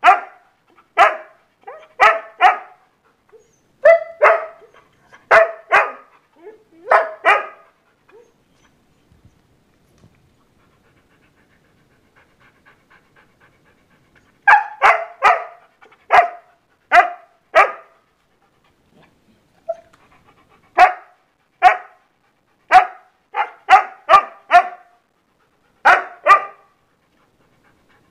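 Husky barking repeatedly in short runs of sharp barks, going quiet for about six seconds partway through before starting up again: impatient barking to be taken out.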